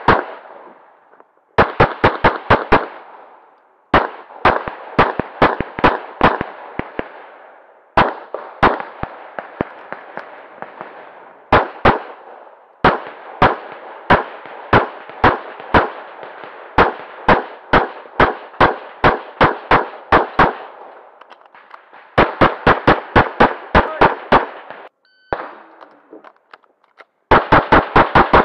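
Pistol fire from a CZ 75 Tactical Sports in .40 S&W, shot in rapid strings of several shots a second. The strings are broken by short pauses of about a second.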